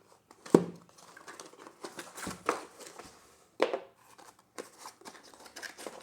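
Packaging being handled and opened by hand: a few sharp knocks and taps, the loudest about half a second in, with light rustling and crinkling of wrapping in between.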